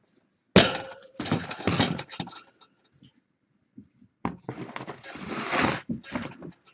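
A litter scoop digging and scraping through cat litter in a litter box: a sharp knock about half a second in, a second or so of gritty scraping and rattling, then a longer run of scraping and rattling litter.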